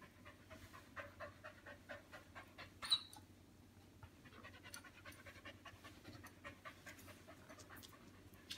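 A dog panting quickly, about four breaths a second, in two runs, with one sharp click about three seconds in.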